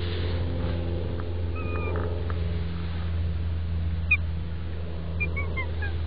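A few short, high mews from stray cats, about a second and a half in, around four seconds, and a quick run of falling ones near the end, over a steady low mechanical hum.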